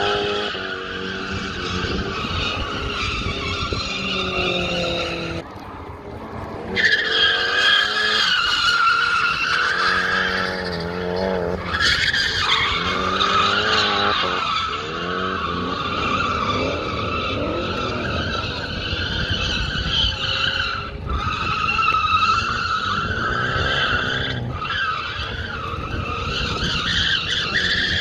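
Nissan S15 200SX drifting: its tyres screech almost without break while the turbocharged SR20DET four-cylinder revs up and down, with a short lull about six seconds in.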